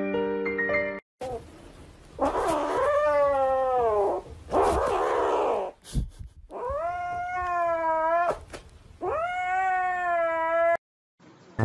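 A grey kitten meows in four long, drawn-out yowls, each rising and then falling in pitch, with short gaps between them.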